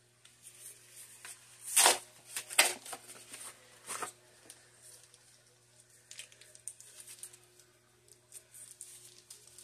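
Cardboard box and foil wrapper of a block of cream cheese being torn open by hand: a few sharp rips about two to four seconds in, then lighter crinkling of the foil.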